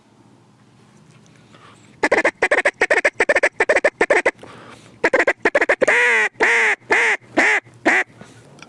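Mallard duck call blown close by: a fast run of short clucking notes, then a series of loud drawn-out quacks, each one shorter than the last, in a descending cadence.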